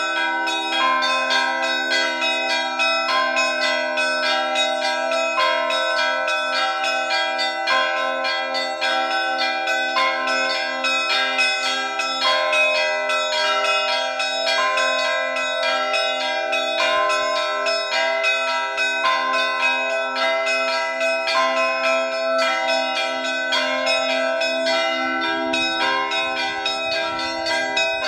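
Russian Orthodox church bell ringing (zvon): small bells struck rapidly and without pause over the lasting ring of heavier bells.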